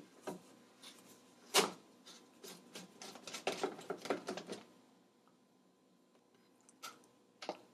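NutriBullet blade assembly being unscrewed from its plastic blending cup by hand: scattered plastic clicks and knocks, one sharper knock about a second and a half in, then a quick run of clicks and scrapes as the threads turn. It goes quiet near the end apart from two small clicks as the blade is lifted off.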